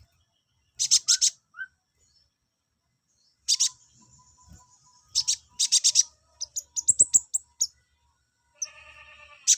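Male kolibri ninja (a sunbird) singing: short bursts of sharp, high chirps and a quick run of rising notes, in phrases with silent pauses between them. Near the end a lower, buzzy call comes in briefly.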